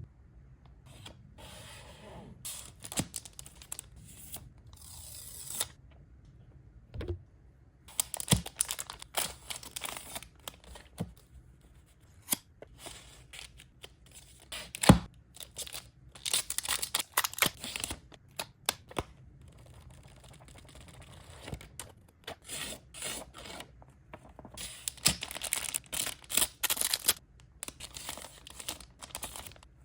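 Packaging being handled and opened: plastic wrap crinkling and tearing in bursts, with scattered sharp clicks and knocks. The sharpest knock comes about halfway through.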